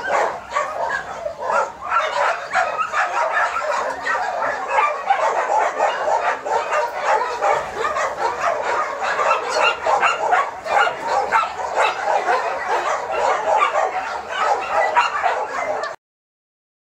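Many dogs barking and yelping at once in a dense, continuous chorus, with no single dog standing out. It stops abruptly near the end.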